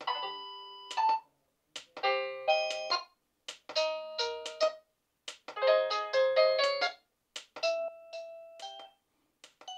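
Tawiliysy digital wall clock's electronic alarm tunes played one after another: about six short beeping melodies, each a second or so long, cut off after a brief gap as the tune button is pressed to step to the next.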